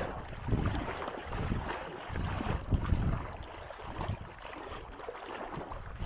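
Wind gusting over the microphone in uneven low rumbles, over the wash of small waves at the shore.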